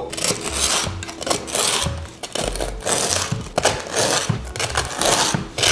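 Bread knife sawing through the crisp crust of a toasted baguette onto a wooden chopping board: a steady series of crackling, rasping strokes, a little under two a second.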